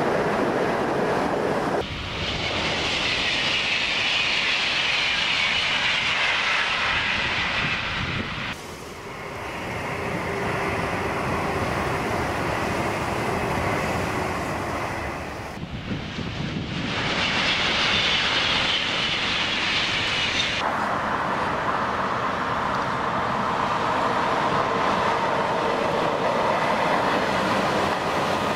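Italo high-speed electric train passing at speed: a steady rush of wheels and air, with a high whine that slides down in pitch as it goes by. The sound changes abruptly several times between passes.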